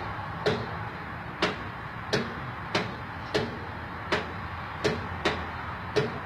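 A series of sharp clicks or ticks, about one every two-thirds of a second and not quite evenly spaced, over a steady hiss.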